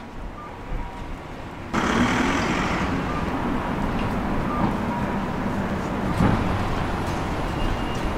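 Outdoor street noise with traffic, an even steady rush that jumps abruptly louder a little under two seconds in.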